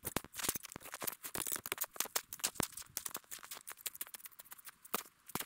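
Snow crunching and scraping as it is dug and trodden: a quick, irregular run of sharp crunches.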